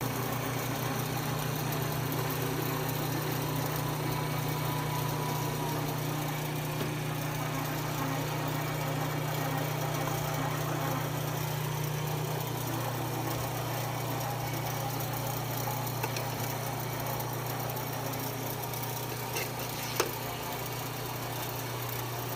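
Single-head computerized quilting machine running, its sewing head stitching a pattern through a mattress topper panel: a steady mechanical hum whose pitch drops slightly about halfway through, with a sharp click near the end.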